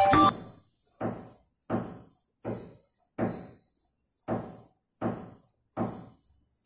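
Pencil drawing short lines along a ruler on paper: about eight separate strokes, roughly one every three-quarters of a second, each starting sharply and fading quickly.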